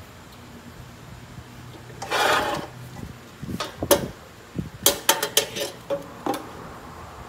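Metal parts of a bandsaw being handled: a short scraping rub about two seconds in, then a run of about ten sharp metallic clinks and knocks.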